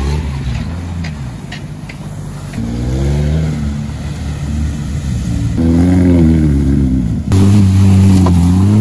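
Jeep engines revving up and down as the SUVs drive hard through mud puddles, with mud and water splashing; several short clips cut one after another.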